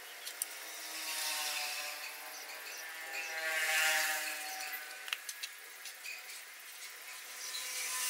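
Bamboo rod being heated over a charcoal stove for straightening: a thin, wavering whistle of several tones over a hiss, strongest about halfway through, with a few light clicks.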